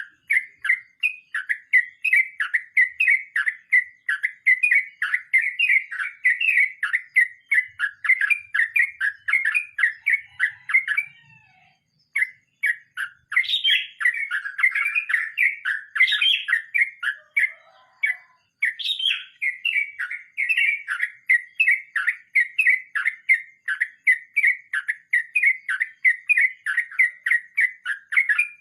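Yellow-vented bulbul (trucukan) singing a long rolling song: quick, bright, bubbly notes repeated several times a second, with two brief pauses in the middle.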